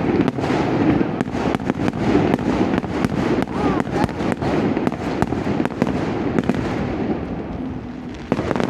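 Fireworks display: a rapid barrage of many bangs and crackles over a continuous rumble, easing slightly near the end.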